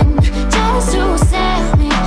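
Background music: an electronic pop track with a deep, steady bass, a melody line and punchy drum hits that drop in pitch, with no singing.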